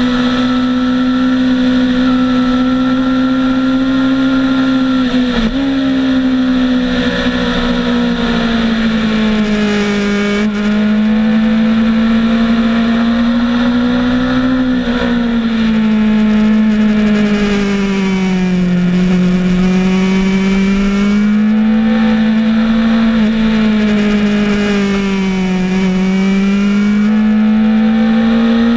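Motorcycle engine running hard at high revs, heard from an onboard camera, its pitch rising and falling gently with throttle through the corners, with two brief breaks about five and ten seconds in.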